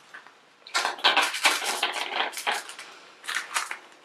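Small plastic toy wrapping crinkling as it is handled and opened: a run of rapid rustling crackles from about a second in, then a shorter burst near the end.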